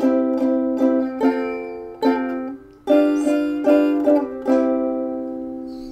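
A strummed string instrument playing a short instrumental run of chords between sung lines, about a dozen strums in uneven groups, then a last chord left ringing and slowly fading out.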